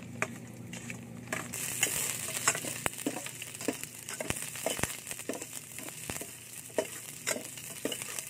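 Garlic and red onion sizzling as they sauté in oil in a stainless steel pot, with a metal ladle stirring and clinking against the pot many times. The sizzle grows louder about a second and a half in.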